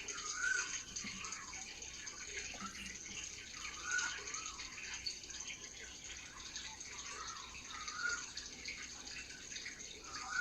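Running water with birds calling over it; a short rising-and-falling call comes back about every four seconds.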